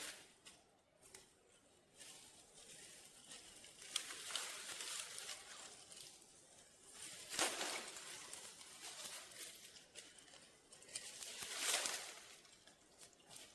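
Rustling of brush and leaves, a soft hiss that swells into louder surges three times.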